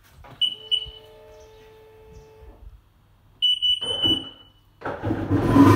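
A 2003 Sea-Doo XP DI's electronics give two short high beeps, then a steady hum for about two seconds, then a longer beep. Near the end its 951cc two-stroke direct-injection engine starts and runs loudly on its first start at home.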